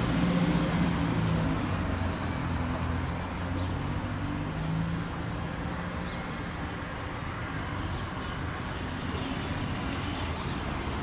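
Road traffic: a passing motor vehicle's engine, loudest at the start and fading away within the first couple of seconds, over a steady background hum of traffic.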